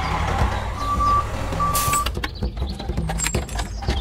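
Tractor engine sound running steadily, with two short reversing-alarm beeps about a second in, as a tractor backs up to hitch a trailer.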